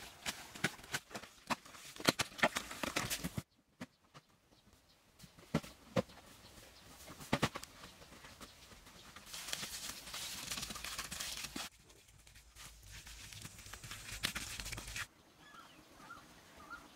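Hands scraping and digging in loose sandy soil, with irregular scuffs and clicks, then a few seconds of steady hiss midway. Faint bird chirps come in near the end.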